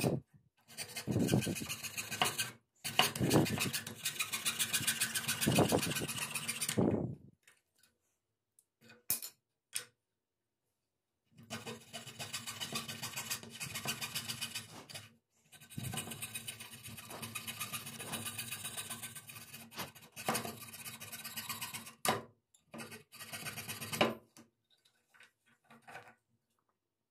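Coping saw's fine blade rasping back and forth through thin wood in quick strokes, stopping for a few seconds about a quarter of the way in and for short pauses later on.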